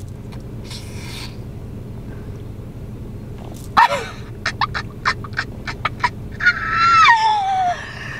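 Excited high-pitched squealing from a woman over a steady low hum: a quick run of short yelping squeals, then one long squeal falling in pitch near the end.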